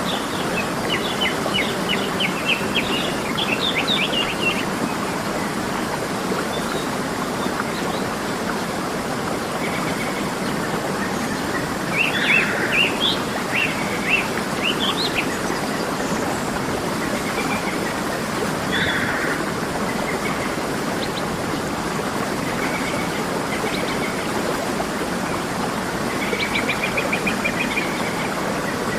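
Waterfall rushing steadily, with birds chirping over it in short runs of quick high notes, several times: near the start, around the middle and near the end.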